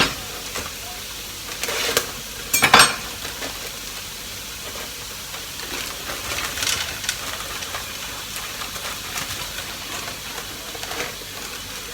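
Chicken and vegetables sizzling in a frying pan, with a few short scraping clatters of stirring, the loudest about two and a half seconds in.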